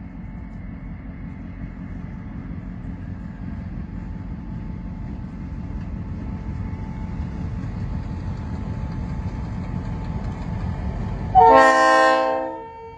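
Low rumble of an approaching diesel freight locomotive, growing steadily louder, then one loud multi-tone train horn blast about a second long near the end, sounded as the locomotive nears.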